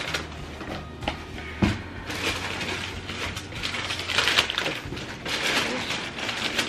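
Crumpled brown kraft packing paper rustling and crinkling as it is pulled out of a cardboard box by hand. A few knocks against the box come in the first two seconds, and the crinkling gets louder and denser after about two seconds.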